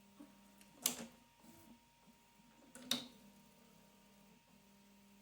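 Prusa XL 3D printer docking and picking up its toolhead: two sharp clicks about two seconds apart as the tool seats in and releases from the dock, over a faint steady motor hum. This is the printer's repeated dock-and-pick-up check of a freshly calibrated dock.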